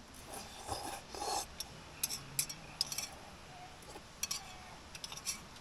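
Utensils scraping and clicking against an aluminium camping pot during a meal: two short scrapes in the first second and a half, then a scatter of light clicks.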